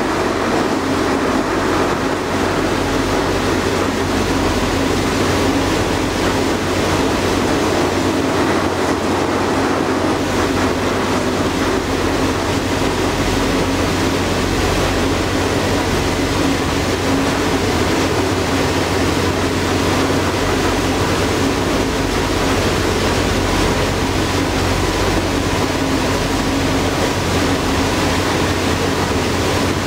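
Steady drone of a passenger ferry under way: a low engine hum with an even rushing noise of water and air over it.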